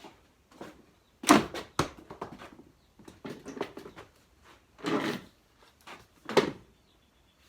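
Handling noises: a series of sharp knocks and clacks with short bursts of rustling and scraping between them. The loudest knock comes about a second and a quarter in, and another sharp one comes near the end.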